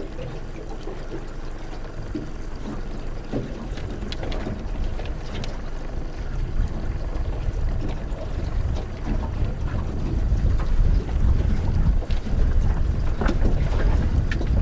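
Small boat under way on choppy water: wind rumbling on the microphone and water splashing against the hull, growing louder over the last few seconds.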